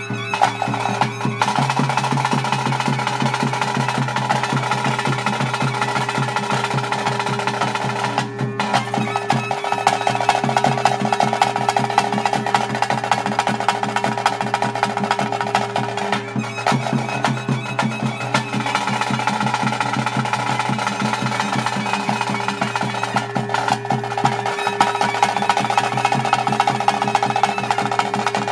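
Traditional ritual music of a Tulu bhuta kola: drums beaten in a fast, continuous roll over a steady held drone tone, with a higher pitched part that pauses briefly about every eight seconds.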